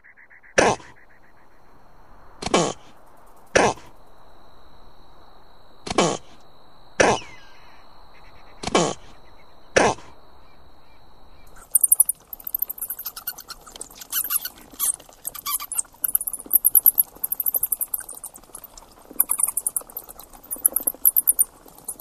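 A spiny-tailed lizard makes seven short, sharp sounds over the first ten seconds; then, from about twelve seconds in, a big-eared jerboa gives rapid, high-pitched ticking in quick trains.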